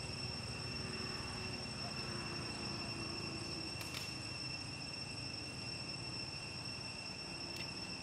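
Steady high-pitched drone of insects, one unbroken tone with fainter overtones above it, over a low steady rumble. A couple of faint clicks come about four seconds in and again near the end.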